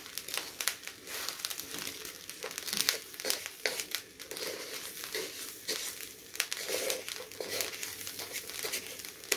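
Wooden spatula scraping and stirring through a wok of hot salt and turning corn cobs in it: a gritty rustle and scrape of salt grains against the pan in irregular strokes.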